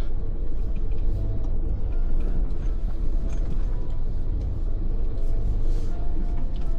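Suzuki Jimny JB74's 1.5-litre four-cylinder engine running at low speed with a steady low rumble as it crawls a slippery off-road trail. Background music plays under it.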